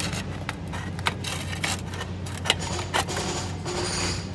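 Aviation tin snips cutting sheet-metal flashing, a string of sharp snips roughly two a second over a steady low hum.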